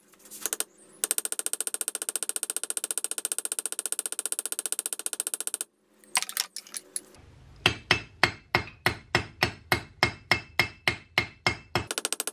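A hammer striking the pin that fixes a cast-aluminium handle in a steel hatchet head resting on an anvil, each blow ringing. A very fast rapid-fire run of strikes fills the first half, then after a short pause come steadier, heavier blows at about four a second until near the end.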